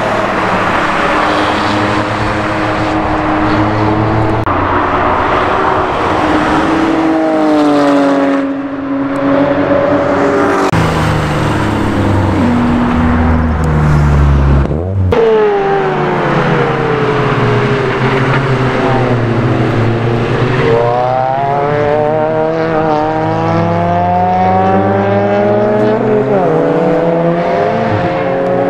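Sports cars driving on a race circuit one after another, engines revving up and falling away as they pass, with the engine note changing abruptly partway through.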